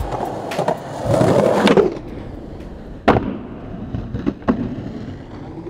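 Skateboard wheels rolling on hard ground, with a louder scrape lasting under a second about a second in. A sharp board snap or landing clap follows about three seconds in, then two lighter knocks.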